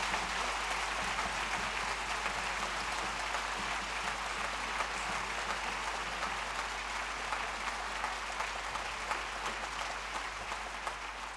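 Large audience applauding steadily as the performers take their bows, easing off slightly near the end.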